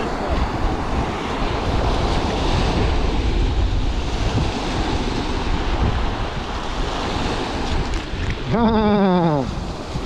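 Strong wind buffeting the microphone over waves washing on the lake shore. About eight and a half seconds in, a man's voice sounds briefly.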